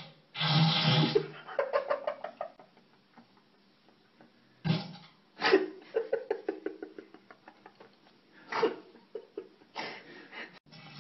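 A man farting loudly and repeatedly on a toilet: a long sputtering fart about half a second in, then four more bursts between about five and ten seconds in, several trailing off into quick sputters.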